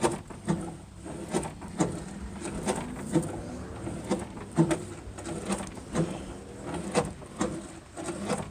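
Van door mechanism worked back and forth, giving a soft creak and click about twice a second in a steady rhythm.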